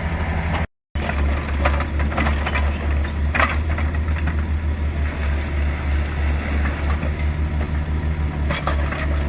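Kubota U45 mini excavator's diesel engine running steadily, with scattered clicks and knocks from the working machine. The sound cuts out for a moment just before a second in.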